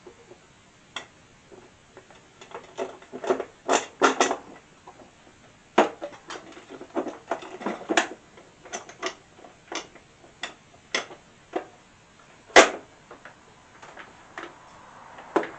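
Small hardware being handled, with irregular clicks and clinks of nuts and bolts. The clicks come thickest a few seconds in and again in the middle, with one sharp knock near the end.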